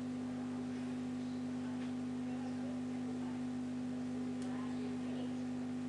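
Steady electrical hum made of one strong low tone with weaker tones beneath it, and a faint tick about four seconds in.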